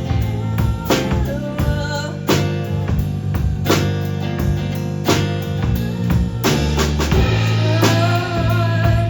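Live band music: guitar chords and bass over a steady drum beat, with a singer's held, wavering notes in the second second and again near the end.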